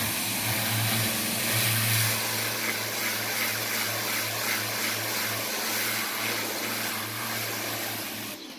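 Pressure washer running with its wand spraying water against a house wall: a steady low hum under an even hiss of spray. It cuts off suddenly near the end.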